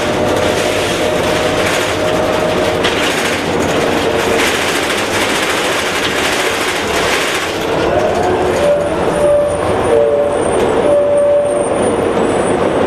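On board a 2003 New Flyer D60HF articulated bus under way: its Detroit Diesel Series 50 engine and Allison B500R transmission run over steady road and cabin noise. The transmission's whine shows as steady tones that shift and glide in pitch about eight seconds in, and a faint high-pitched tone joins in the second half.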